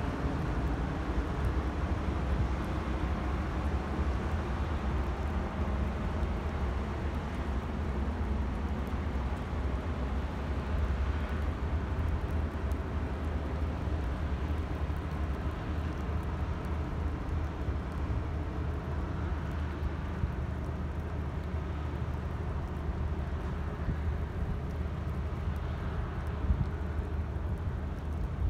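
Steady low engine rumble from a vessel on the water, with an even hiss of wind and water over it.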